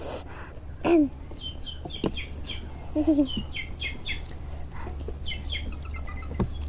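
Small birds chirping in quick series of short high notes, with a few brief falling voice-like sounds, some sharp clicks and a steady low hum underneath.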